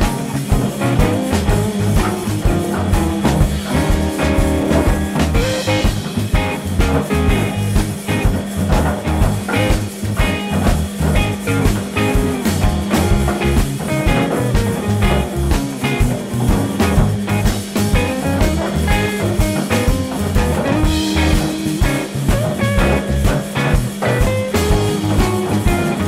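Background music with guitar and a steady beat.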